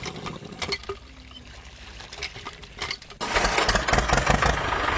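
A few light plastic clicks from a toy hand pump's handle being worked. About three seconds in, a loud, steady engine-like motor noise starts abruptly.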